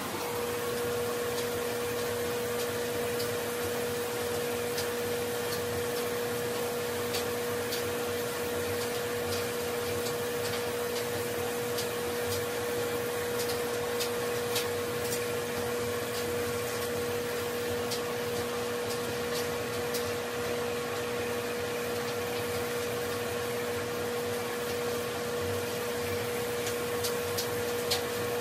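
Sonic electric toothbrush buzzing steadily as it brushes: a constant hum over a steady hiss, with a few faint clicks.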